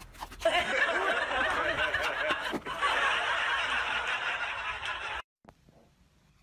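Several people laughing hard together, a dense continuous burst of laughter that cuts off abruptly near the end.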